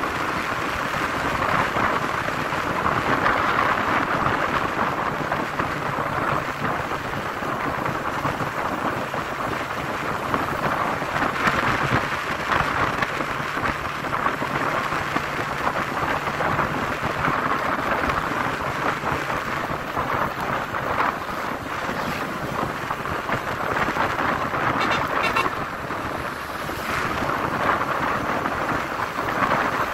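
Wind rushing and buffeting over the microphone of a moving motorcycle, with the bike's engine running steadily underneath.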